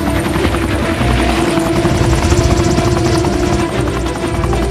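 Helicopter running close by, its rotor chopping rapidly over a steady engine whine.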